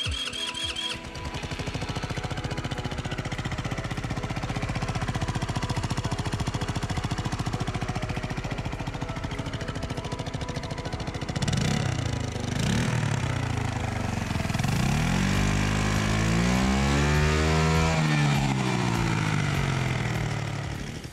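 Small single-cylinder GY6 scooter engine on a bare frame, starting up and idling steadily, then revved up and down several times with the throttle from about halfway through.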